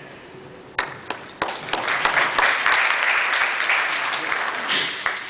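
Audience applauding: a few scattered claps about a second in, building into steady applause that dies away near the end.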